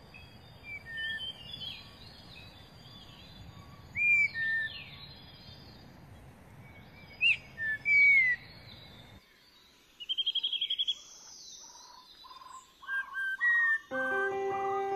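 Birds chirping and calling: short whistled notes, several sliding downward, over a steady outdoor hiss. About nine seconds in the hiss drops away and a fast trill follows, and music with plucked guitar starts near the end.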